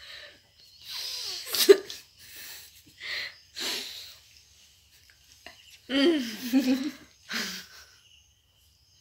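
Two women laughing while trying to hold it in: several short breathy bursts of stifled laughter through a covered mouth, then a louder voiced burst of laughter about six seconds in.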